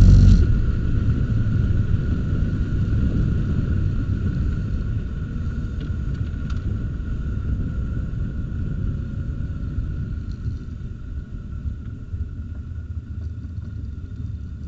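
Formula Atlantic car coasting with its engine dead after a failure: low tyre and wind rumble, fading as the car slows, over a faint steady high whine.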